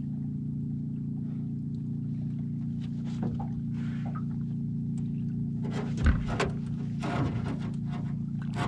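Boat motor running at a steady idle, with scattered knocks and one sharp thump about six seconds in.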